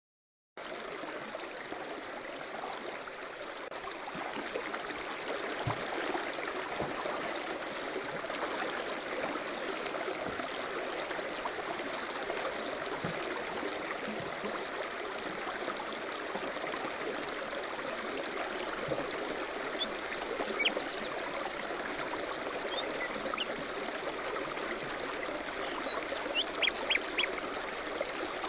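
A recorded babbling stream from a nature-sound ambience mix. It comes in about half a second in and runs as a steady even rush of water. Near the end a few short high chirps are added.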